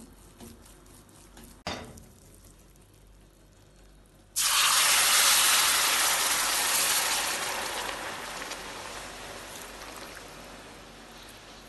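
Hot sugar syrup poured into amaranth flour roasted in ghee in a steel pan: a sudden loud sizzle starts about four seconds in and slowly dies down. Before it, a wooden spoon scrapes quietly, with one sharp knock.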